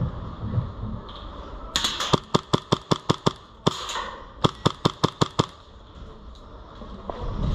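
Airsoft gun firing two quick strings of sharp shots, about six a second: the first starts about two seconds in, the second about four and a half seconds in.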